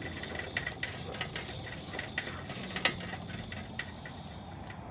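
Rear wheel and hub speedometer drive of a 1977 Triumph T140V Bonneville spinning with a newly fitted speedometer cable: light irregular mechanical clicking, two or three clicks a second, over a steady hiss.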